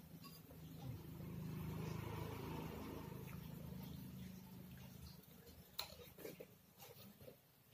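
A motor vehicle passing, a low drone that swells and fades over about four seconds. Near the end come soft eating sounds and a light click.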